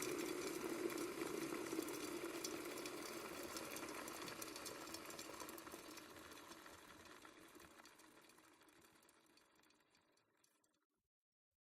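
Water boiling in an electric kettle: a steady bubbling rumble that dies away gradually over about eight seconds until it is gone.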